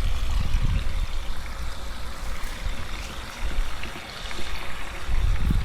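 Water from a garden hose pouring and splashing onto potted plants and soil, with a low rumble on the microphone at the start and again near the end.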